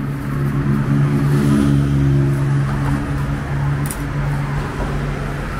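A motor vehicle's engine running close by in street traffic, a steady hum that swells for a couple of seconds and then eases. A short sharp click about four seconds in.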